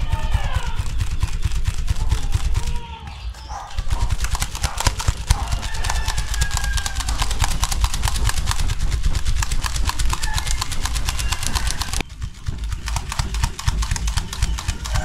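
Fast, even clatter of a hand fan being flapped over a charcoal grill, with its gusts buffeting the microphone as a low rumble. The fanning briefly eases a little before 3 seconds in.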